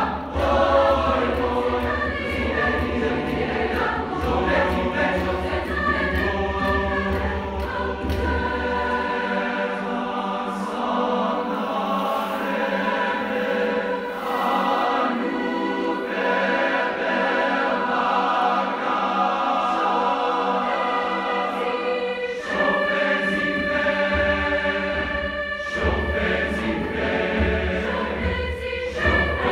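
Large mixed choir singing in many-part harmony, accompanied by hand drums. The deep low drumming drops out about nine seconds in, leaving the voices on their own, and comes back around twenty-two seconds.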